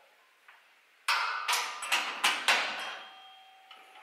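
A spanner knocking on the steel of a Lambretta scooter's front fork link: about five sharp metallic knocks in quick succession starting about a second in, the last one left ringing.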